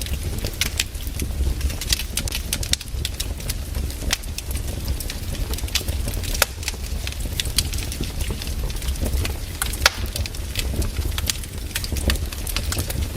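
Wood fire burning, with frequent irregular sharp crackles and pops from the logs over a steady low rumble.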